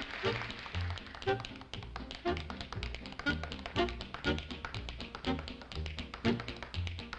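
Tap shoes striking a stage floor in quick rhythmic taps as a dancer tap dances, over band music with a steady bass beat.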